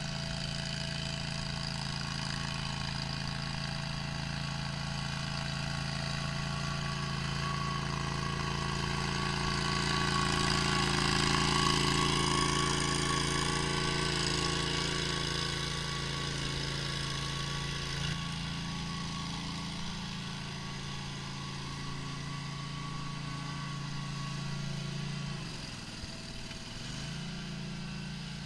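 Gas engine of a Toro walk-behind tracked trencher running steadily while it digs a narrow trench, loudest about twelve seconds in and dropping back slightly near the end.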